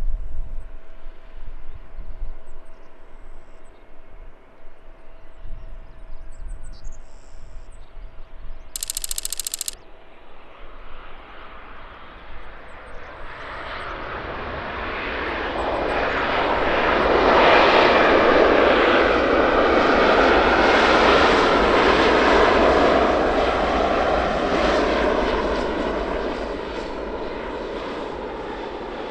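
Jet airliner passing close while arriving: the engine noise builds from about halfway in, is loudest for several seconds, then fades away.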